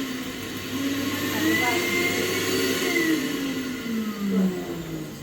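Electric vacuum cleaner running: a steady rush of air with a high whine, its motor pitch sinking toward the end.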